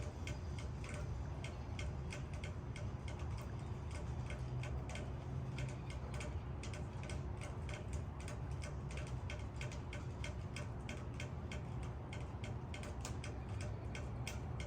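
Raindrops tapping on leaves: sharp, irregular ticks, several a second, over a steady low rumble.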